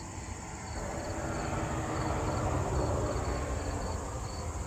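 Insects chirping in short repeated trills over a broad rushing noise that swells about a second in and eases off near the end.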